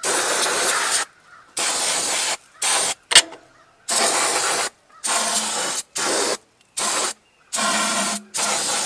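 Aerosol can of brake cleaner spraying in about nine short bursts, each under a second, onto a dirty riding-mower engine to clean it. A sharp click about three seconds in.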